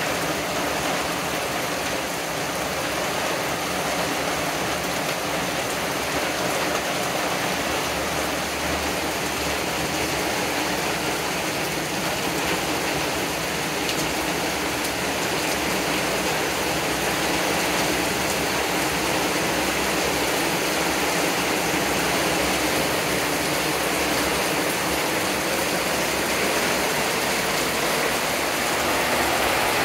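Heavy thunderstorm rain falling steadily on leafy trees and a wooden deck, a constant hiss that grows a little louder in the second half.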